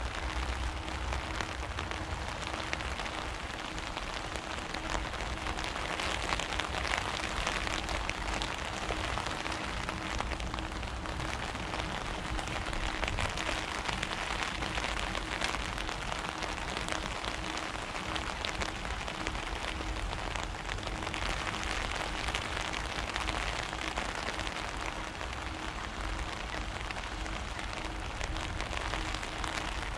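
Steady pattering hiss of falling water on a surface, even and unbroken, with a faint steady hum underneath.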